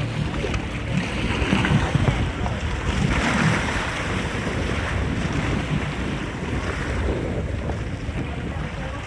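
Jet ski running on open water: wind buffets the microphone over a steady rush of water and engine noise.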